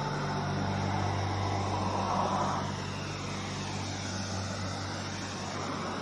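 Steady road traffic noise with a vehicle passing by in the middle. A low sustained note from just before slowly fades out under it.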